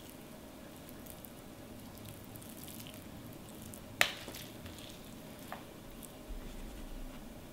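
Soft, faint squishing of raw ground-pork filling being pressed by hand into halved bitter melons, with one sharp click about four seconds in and a fainter one a second and a half later.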